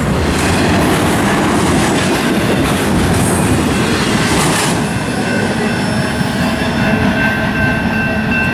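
Double-stack intermodal freight train rolling past at close range, its wheels rumbling on the rails. The noise drops as the last car goes by about five seconds in, leaving a steady high ringing.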